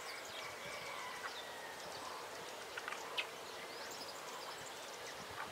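Outdoor rural ambience: scattered short bird chirps and calls over a steady hiss, with a short click about three seconds in.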